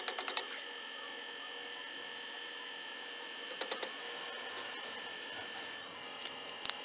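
Steady electrical hum with a few even tones, as the tail of a rapid run of taps fades out in the first half second. A few light taps come near the middle and a single sharp click near the end.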